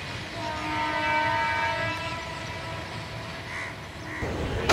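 Train horn sounding one blast of several notes at once for about two seconds, heard from a distance over the low rumble of the passing passenger train. Near the end it gives way to louder train running noise.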